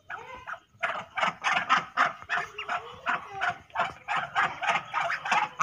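A run of short, quick duck calls, about four a second, starting about a second in.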